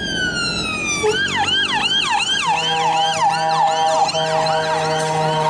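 Electronic fire-engine siren sound: one slow falling wail for about a second, then a fast up-and-down yelp about three times a second. A steady tone of several notes joins it about halfway through.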